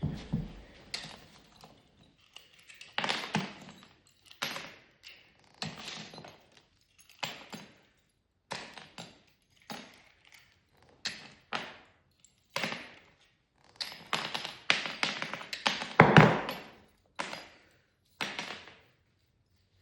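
An irregular series of knocks and taps, roughly one every second, each fading out quickly, with the loudest knock about sixteen seconds in.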